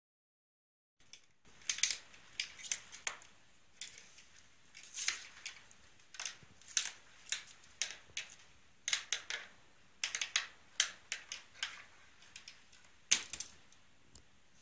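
A ballpoint pen clicking, tapping and rattling on a desktop as a kitten bats and paws at it. The irregular sharp clicks start about a second in, a few to several a second.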